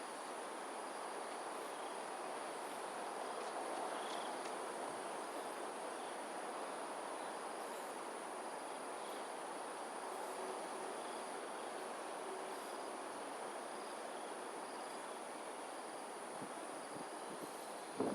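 Insects, likely crickets, trilling in one steady high-pitched band over a steady rush of background noise.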